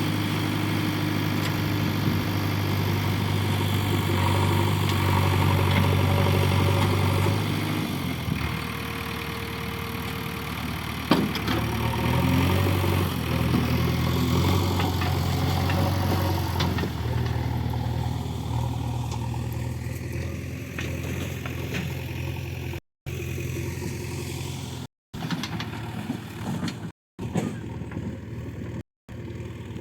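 JCB 3DX Eco backhoe loader's diesel engine running steadily, its note dropping and settling lower about eight seconds in as the load changes. There is a sharp knock about eleven seconds in, and the sound cuts out briefly four times near the end.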